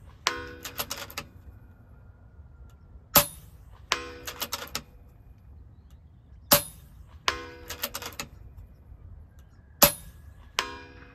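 FX Impact M3 PCP air rifle firing three sharp shots about three seconds apart. Each shot is followed a moment later by a short run of metallic clicks and ringing.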